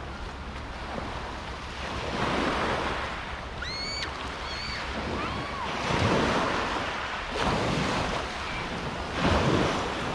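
Sea waves washing onto a pebbly beach, swelling and falling several times. Around the middle, a few short, high, whistled calls, most likely a bird's.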